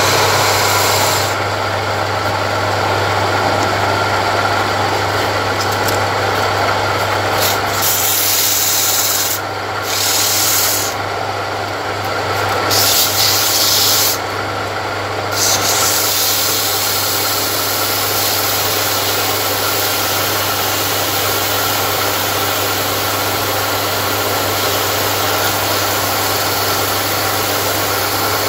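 A homemade wood lathe runs with a steady hum from its 0.27 kW single-phase electric motor. The spinning hardwood handle is rasped and then sanded by hand, giving a continuous rubbing, scraping hiss. The hiss briefly drops out a few times around the middle.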